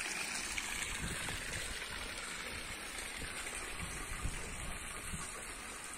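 Water from a fountain's spouts splashing into its stone basin, a steady rushing that grows slightly fainter toward the end.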